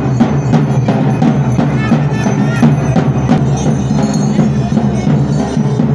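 Loud rhythmic percussion music: drums knocking a steady beat, about two to three strokes a second, with bell-like ringing over it.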